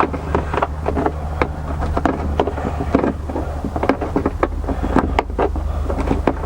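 Hand tools clicking and knocking irregularly as screws are taken out of a car's dashboard, over a steady low rumble.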